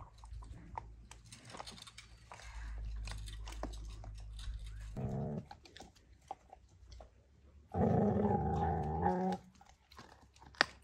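Dogs in a yard: a dog growls briefly about five seconds in, then again, louder, for about a second and a half near the eight-second mark. Faint crunching of a dog chewing on food runs underneath.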